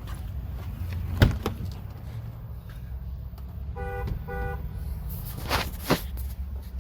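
A single knock, then two short electronic chime beeps from the Jeep Wrangler's dash as the key is turned, then the starter cranking the engine near the end. It now cranks because the transmission has been put in park by hand, which points to a fault in the shifter linkage or cable.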